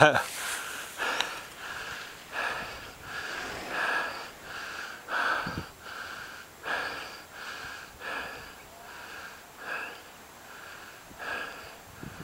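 A person breathing hard close to the microphone: a run of quick, noisy breaths, one or two a second.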